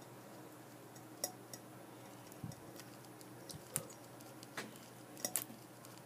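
Faint, scattered light clicks and ticks, about seven over six seconds, from a cicada lying on its back and moving its legs against a crinkly plastic bag, over a low steady room hum.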